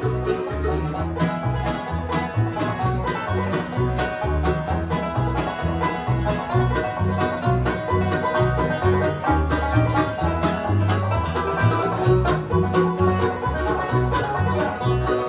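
Bluegrass string band playing an instrumental break, with banjo and guitar picking over low bass notes on the beat.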